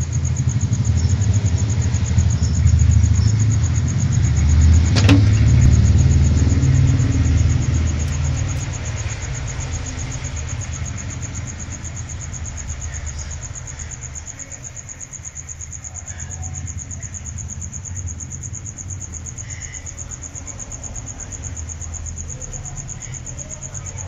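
Low rumble, loudest in the first eight seconds and fading by about fourteen seconds in, over a steady high-pitched insect trill; a single sharp click about five seconds in.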